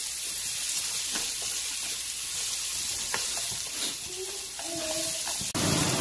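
Sliced onion and garlic sizzling in hot oil in an aluminium pot, stirred with wooden chopsticks that give a few light clicks against the pot: the aromatics frying until fragrant. A sharp click near the end, then the sound changes abruptly.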